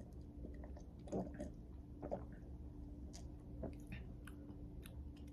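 Faint mouth sounds of a man drinking: sipping and swallowing, then small clicks and lip smacks as he tastes it.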